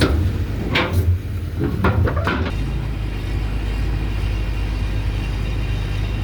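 Heavy vehicle engine running steadily with a low rumble, with several sharp metallic knocks in the first two and a half seconds.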